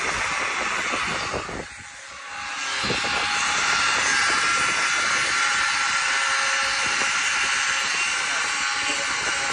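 Milwaukee angle grinder grinding steel with a steady hiss, dropping off briefly about two seconds in and building back up. It is trimming the overlong ends of steel pivot bushings down flush with the bores.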